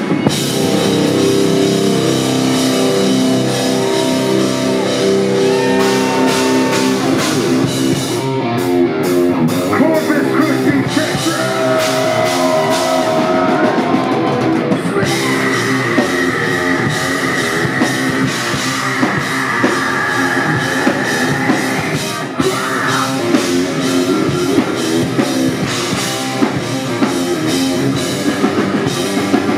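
Rock band playing live and loud: distorted electric guitars, bass guitar and a drum kit, kicking in together right at the start.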